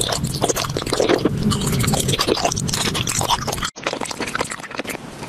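Candy being crunched and chewed, a dense crackle of small clicks and squishes, with a short break about three and a half seconds in.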